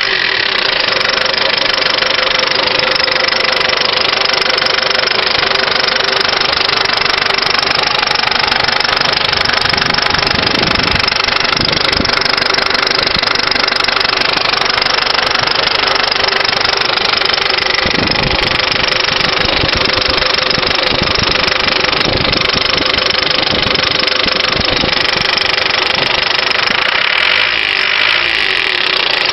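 1996 Ford Transit 2.5 four-cylinder diesel engine running steadily with a rapid knock that the owner places in the high-pressure fuel injection pump; its cause is unknown to him.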